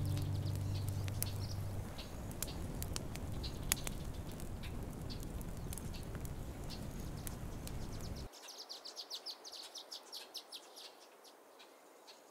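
Outro music dies away in the first couple of seconds, leaving a crackling campfire sound effect with scattered sharp pops. About eight seconds in the low crackle stops abruptly, and rapid high chirping pulses on, fading toward the end.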